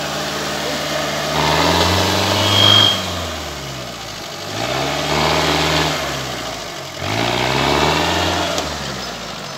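Second-generation Mitsubishi Pajero's engine revving up and easing off three times as the 4x4 crawls up a rough bank, with a brief high squeak during the first rev.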